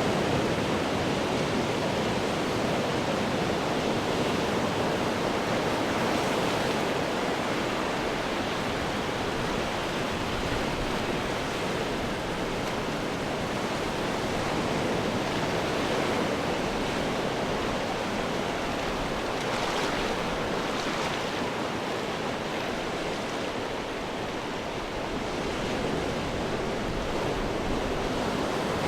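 Ocean surf breaking against rocks: a continuous wash of churning water that swells and eases slightly, with a brighter splash near two-thirds of the way through.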